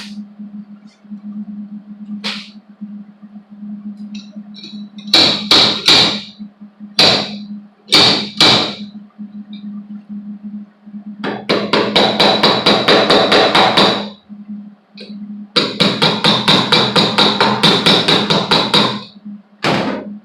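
A handful of sharp metal blows from a slide hammer, then two bursts of MIG welding crackle a few seconds each, as the slide hammer's tip is welded to the dented steel panel. A steady low electrical hum runs underneath.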